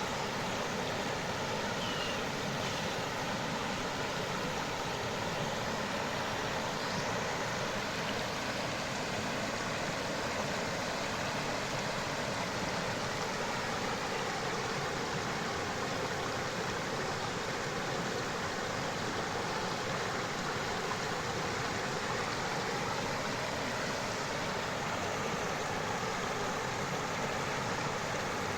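A creek or river flowing, with water rushing steadily and evenly.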